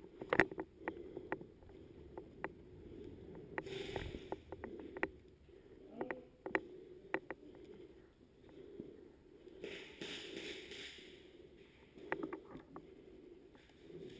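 Footsteps on a concrete floor and the rustling of a player's gear as he moves, with irregular sharp clicks and knocks, and two short hissing sounds about four and ten seconds in.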